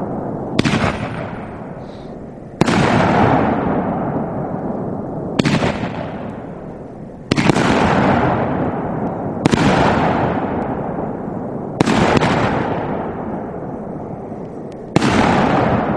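Aerial shells from a 500 g firework cake going off as a series of loud booms, about seven in all, two to three seconds apart, each fading slowly away.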